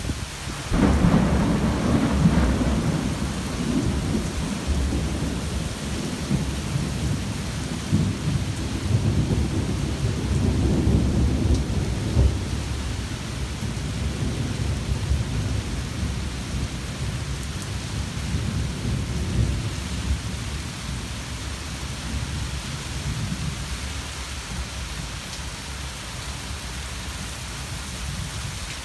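Rolling thunder over steady rain: a long, low rumble breaks in about a second in, swells again midway, then slowly dies away beneath the hiss of the rain.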